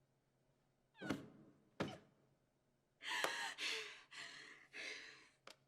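A person gasping and breathing hard: a short catch of breath about a second in, then four or five loud, ragged breaths from about three seconds in.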